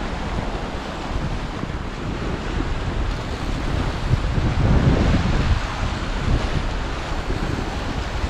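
Wind buffeting the microphone over the steady wash of ocean surf, swelling louder about halfway through.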